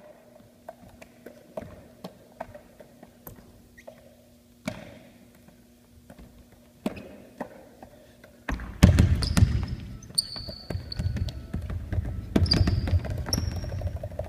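A basketball dribbled on a wooden gym floor, sharp bounces about two a second. About halfway through a loud low rumble comes in, with short high squeaks typical of sneakers on the court over it as the bouncing goes on.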